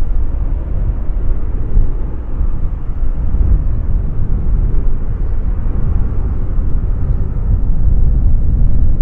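Ryanair Boeing 737 taking off: the twin jet engines run at take-off thrust in a steady, deep rumble as the airliner lifts off and climbs away.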